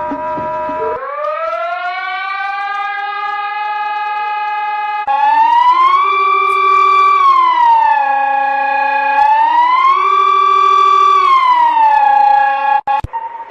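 Emergency warning siren. It winds up in pitch to a steady tone, then about five seconds in grows louder and wails, rising and falling slowly twice before cutting off near the end. Before it, a steady alarm tone ends about a second in.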